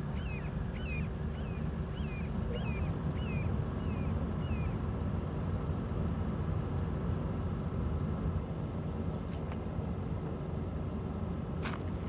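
Steady low outdoor rumble with a faint hum, and no siren sounding. Over it a small bird gives a run of about nine short chirps, two or three a second, during the first five seconds. Two sharp clicks come right at the end.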